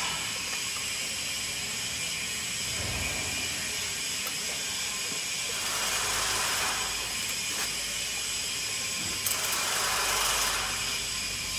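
Hand ratchet wrench tightening the mounting bolts of a block machine's controller box, in two spells of rapid clicking, one about halfway through and one near the end, over a steady background hiss.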